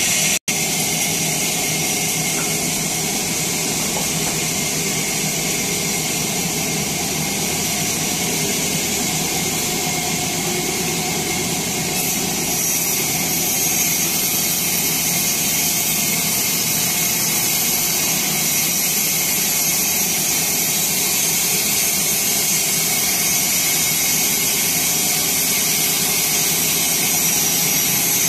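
Sawmill saw running steadily: a loud, even machine noise with a strong hiss, broken by a momentary dropout about half a second in.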